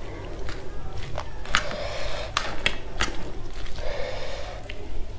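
Fingers squishing and mixing rice with gravy, picked up close by a clip-on microphone, with a scatter of sharp wet clicks.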